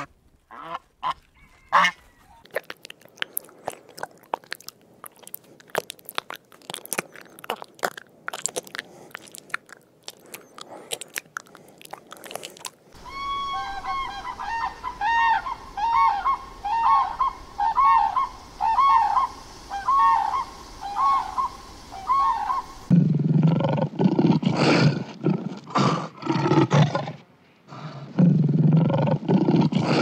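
A run of animal sounds: first scattered clicks and rustles with a few short high peeps from a goose and goslings foraging, then from about 13 s a sandhill crane's repeated calls, each an arching tone, about two a second. From about 23 s lions take over with low calls in pulses.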